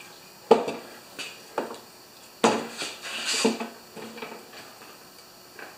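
Several sharp knocks and clicks of hands handling an old push lawnmower on a wooden-topped lift table, with a brief hiss about three seconds in.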